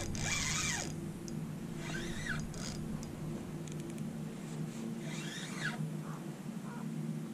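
Fishing reel being cranked in short bursts while a hooked fish is reeled in. Each burst is a brief whir that sweeps up and down in pitch, a few seconds apart, over a low steady hum.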